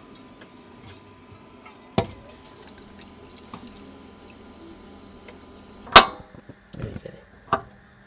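Water running from a campervan sink tap into a saucepan, filling it. About six seconds in comes a loud sharp metallic clunk, followed by a few lighter clicks and knocks.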